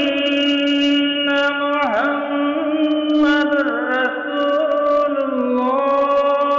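A man's voice chanting the Islamic call to prayer (adhan), one long melismatic phrase with sliding turns in pitch, settling on a steady held note near the end.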